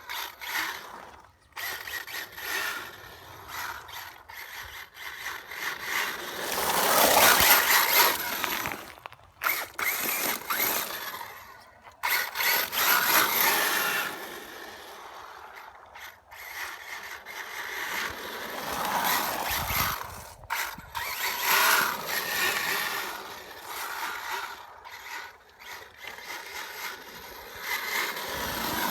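HPI WR8 Flux electric RC rally car's brushless motor and drivetrain running in bursts, swelling loud several times as the car accelerates and fading as it slows or moves away, with a steady high-pitched whine throughout.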